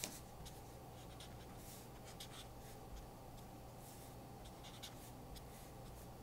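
Prismacolor art marker tip dabbed and drawn in short strokes across paper, faint and irregular, about two touches a second.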